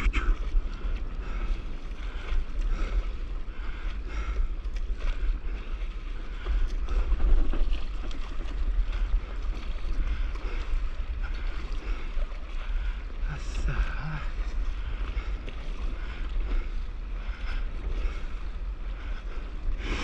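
Wind buffeting the microphone with a steady low rumble, over water sloshing and splashing around a stand-up paddleboard on a light sea swell.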